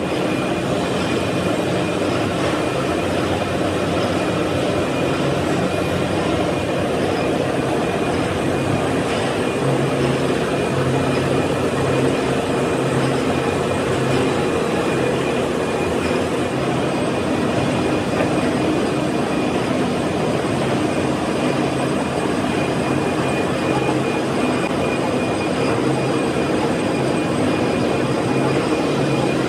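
Gear hobbing machine running steadily as its hob cuts helical teeth into a stainless steel pinion shaft under flowing cutting oil. It makes a continuous mechanical drone with a few held tones.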